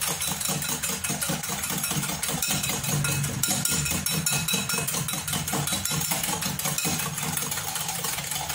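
Wire balloon whisk beating eggs and sugar by hand in a glass bowl: rapid, steady strokes clicking and scraping against the glass.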